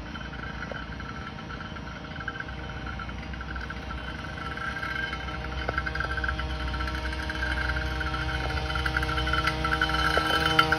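Small two-stroke engine of a gas GoPed scooter running flat out as it approaches, a steady high-pitched buzz that grows gradually louder.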